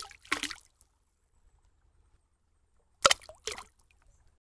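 Cartoon splash sound effect of an egg dropping into a bucket of paint: two short wet splashes right at the start, and another pair about three seconds in.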